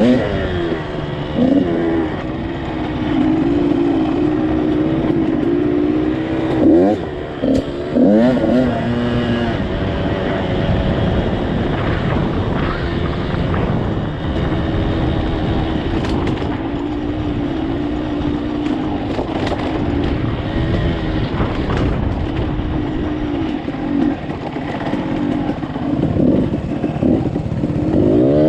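KTM dirt bike engine running under way, revving up and dropping back sharply twice about seven and eight seconds in, then holding a fairly steady pitch.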